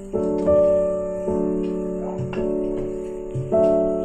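Background piano music: sustained chords struck about once a second.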